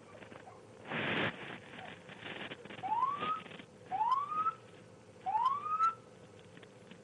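Three short rising siren whoops, about a second apart, each lasting about half a second. A loud burst of noise comes about a second in.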